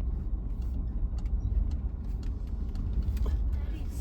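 A vehicle driving on a muddy road: a steady low rumble of engine and tyres, with a few light clicks.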